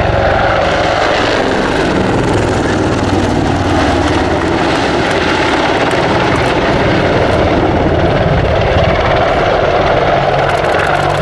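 Boeing AH-64 Apache attack helicopter flying close at low level: its twin turboshaft engines and rotors make a loud, steady noise with a fast beating from the blades.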